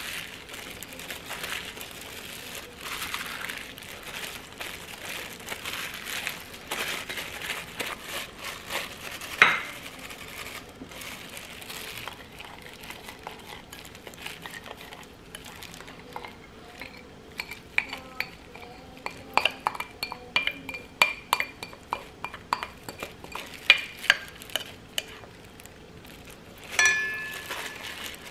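A wooden spoon scrapes sauce out of a ceramic bowl into a stainless steel mixing bowl, with a sharp knock partway through. Mixing in the steel bowl follows: a run of quick clicks and knocks that set the bowl ringing, and one louder ringing knock near the end.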